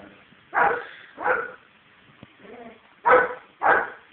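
A dog barking: short, sharp barks in quick groups of two or three, about two-thirds of a second apart, with a pause between the groups.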